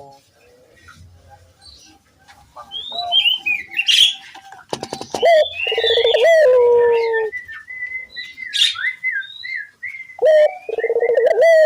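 Puter doves (ringed turtle doves) cooing: long rolling, trilled coos, one starting about five seconds in and another near the end. Between them, small birds chirp and twitter at a much higher pitch.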